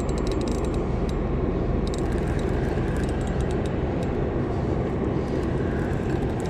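Steady low diesel drone from the large ships and tug on the river, engines and generators running. Light clicking from a spinning reel being cranked, mostly in the first second and again about two seconds in.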